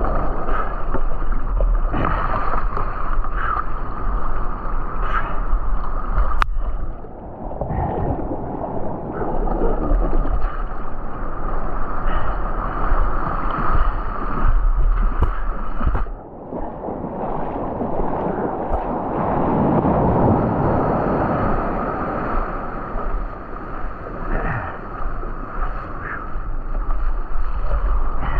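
Shore-break surf washing in the shallows, foamy water sloshing close to the microphone. It runs steadily, with brief lulls about 7 and 16 seconds in.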